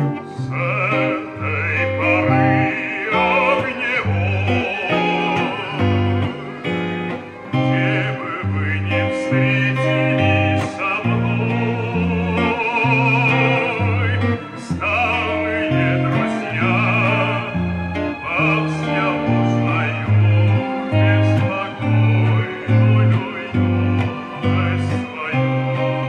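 Electric guitar, a black Les Paul-style solid-body, playing the chords of a song. Above it a melody line wavers and glides in pitch over changing bass notes.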